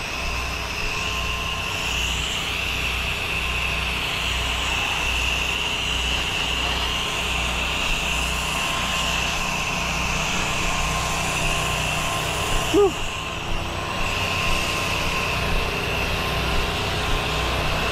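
Pressure washer running steadily, its engine making a low, evenly pulsing hum under the continuous hiss of water spraying from the gun.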